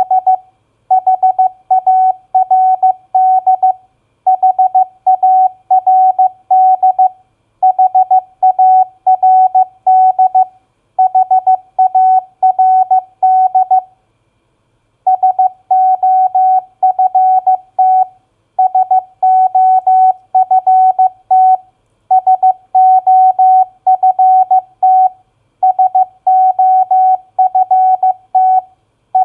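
Morse code practice tone: a single steady beep keyed on and off in dots and dashes at 15 words per minute, spelling common four-letter words. The words come in blocks of about three seconds, separated by short pauses, with a longer pause about halfway through.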